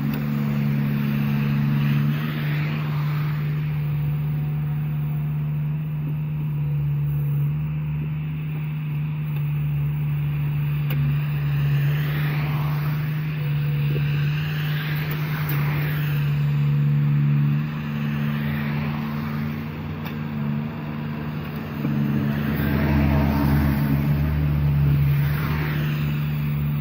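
A heavy engine runs with a steady drone while vehicles swish past several times.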